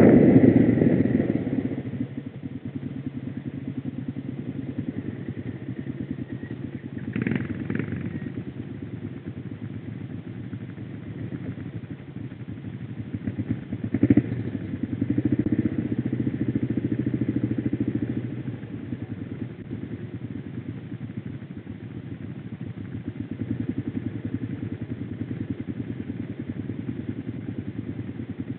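Quad (ATV) engine idling steadily after the machine slows, the louder riding noise dying away over the first couple of seconds. A couple of brief knocks come about 7 and 14 seconds in, and the engine picks up a little for a few seconds after the second.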